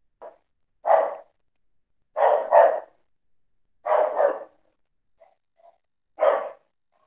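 A dog barking in short separate barks, roughly one a second, with two barks in quick succession about two and a half seconds in and two faint short yips a little after the middle.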